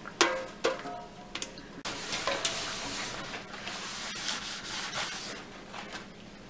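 A stainless steel pitcher clinking a few times against a plastic bowl, each clink with a short ringing note, then about three seconds of steady scraping and rubbing as cold process soap batter is poured and divided between containers.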